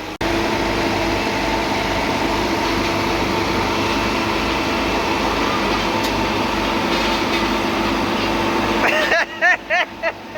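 Road roller engine running steadily, with an even low pulsing under it. Near the end a quick cluster of short, loud, pitched sounds that rise and fall cuts in.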